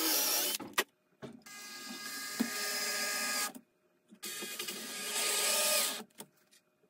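Cordless drill motor whirring in three bursts, the middle one the longest, while drilling and driving a screw at an angle into pine boards.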